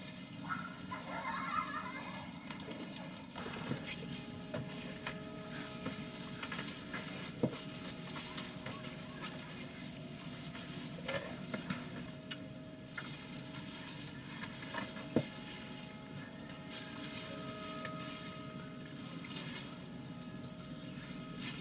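Wet squishing and plastic rustling of hands working minced meat into sausage casings and handling the filled casings, with two sharp clicks.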